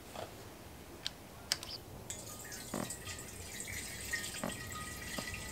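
Faint, scattered clicks and knocks of hand work on a mini bike's carburetor and fuel tank, over a steady faint hiss that sets in about two seconds in.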